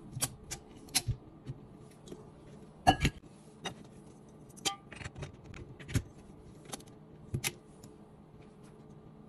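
Scattered clicks and metal knocks as a tilt-head stand mixer is set up: the stainless steel bowl goes onto the base and the head is lowered. The loudest knock comes about three seconds in.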